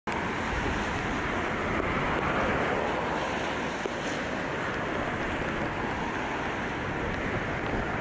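Steady jet roar from a Boeing 747 on final approach, mixed with gusty wind buffeting the microphone.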